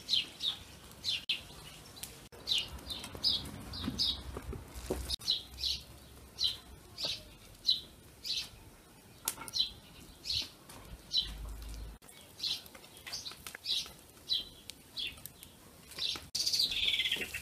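A small bird chirping over and over, short high chirps about two a second. Near the end comes a louder sound that falls in pitch.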